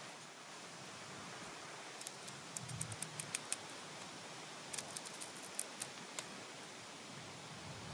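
L.T. Wright Pronghorn knife whittling a dried black cherry stick: two runs of small, sharp cutting clicks, about two to three and a half seconds in and again around five to six seconds, over a steady hiss.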